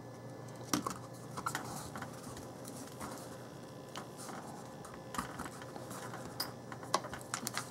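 Irregular light clicks and taps of a Milwaukee 0375 drill's plastic clamshell housing being handled as its two halves are pressed together and seated before the screws go back in.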